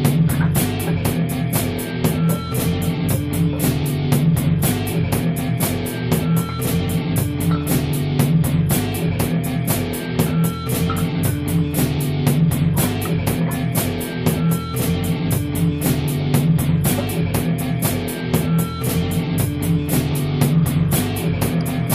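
Background rock music with guitar and drums keeping a steady beat.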